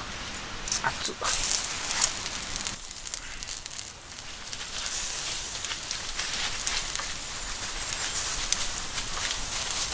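Wood campfire crackling under cooking pots, with a few sharp clicks and knocks in the first two seconds, then a steady hiss with scattered crackles.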